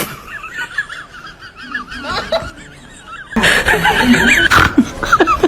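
High-pitched, squeaky cartoon-character giggling, softer in the middle and louder again from about three and a half seconds in.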